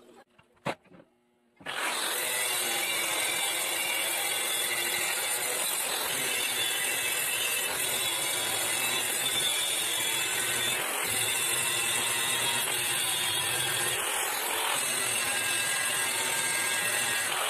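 A short click, then an angle grinder runs against the steel bars of a welded grate, a loud, steady grinding with a strong high hiss.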